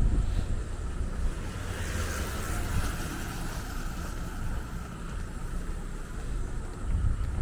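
Wind rumbling on the microphone, with a wash of higher-pitched noise swelling and fading about two seconds in.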